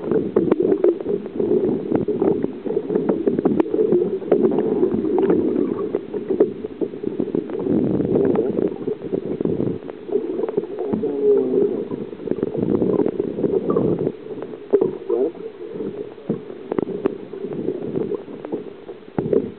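Muffled water sloshing and gurgling around a camera held under the surface, heard through its waterproof housing, with many small clicks and knocks.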